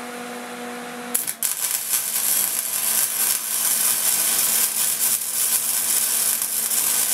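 A steady hum, then about a second in a flux-core wire-feed welder's arc strikes and crackles steadily as it welds steel shifter linkage.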